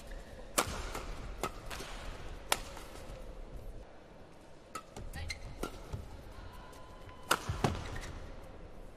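Badminton rackets striking a shuttlecock: a few sharp hits in the first few seconds, then two more in quick succession near the end, over low hall noise.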